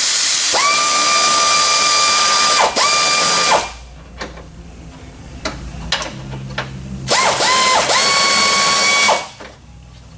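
Pneumatic air ratchet running in two bursts, backing out bolts. Each burst spins up quickly to a steady whine over the hiss of exhaust air. The first lasts about three and a half seconds with a brief stutter near its end, and the second starts about seven seconds in and lasts about two seconds. Light tool clicks come between them.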